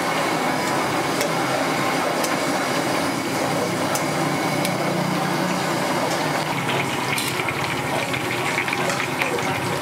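Taro pieces deep-frying in a wok of hot oil: a steady sizzle, with sharper crackling from about two-thirds of the way in.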